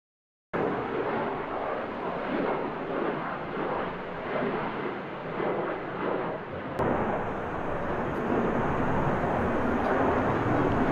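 Jet engine noise from an airliner climbing out after takeoff: an Embraer E190's GE CF34 turbofans at climb power, a loud, steady rushing. It starts abruptly about half a second in, and there is an edit cut about seven seconds in, after which it runs steadier and slightly louder.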